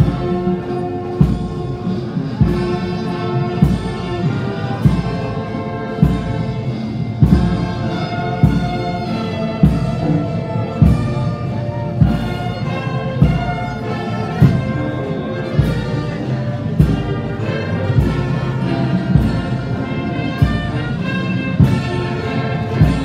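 Brass band playing a slow piece, with a steady drum beat about once every second and a quarter under sustained brass chords.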